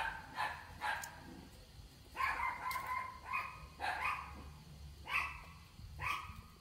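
An animal calling in short, high-pitched yelps, about eight of them, one drawn out for most of a second a little after two seconds in.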